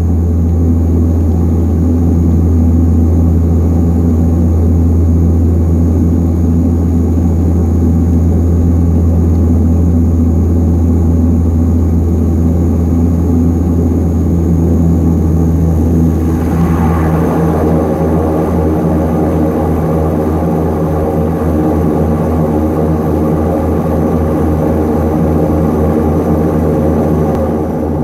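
Antonov An-24's Ivchenko AI-24 turboprop engines and propellers running steadily, heard from inside the cabin as the aircraft moves along the ground. About halfway through, the engine note changes: a higher drone comes in and the low hum starts to pulse.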